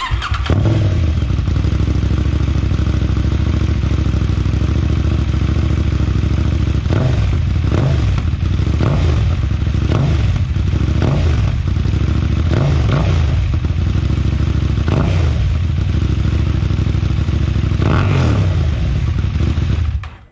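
KTM 790 Duke's parallel-twin engine idling loud and open with its stock silencer removed. From about seven seconds in it is blipped on the throttle about ten times in short revs, and it cuts off suddenly near the end.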